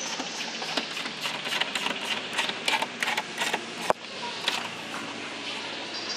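A run of sharp metallic clicks and taps, two or three a second, over a steady hiss. This is hand tools at work as the fuel tank is refitted under the car. The clicking thins out after about four and a half seconds.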